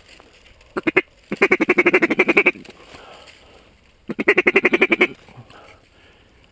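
Hand-held duck call blown in two rapid chattering runs of quacks, several a second: a longer run about a second in and a shorter one about four seconds in, calling to passing flocks of ducks.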